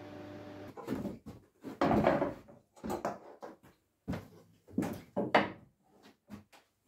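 Hand tools working on wood: a series of short, irregular scraping and knocking strokes with brief gaps between them. A steady hum stops shortly in.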